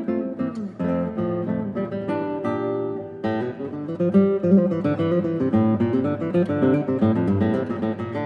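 Background music on acoustic guitar: quick plucked notes and strummed chords, with a fuller passage starting about three seconds in.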